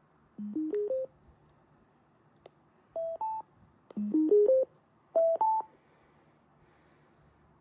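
Bluetooth speaker electronic startup tones: a quick rising run of four beeps followed by a rising two-note beep. The pattern plays twice, with a click in between.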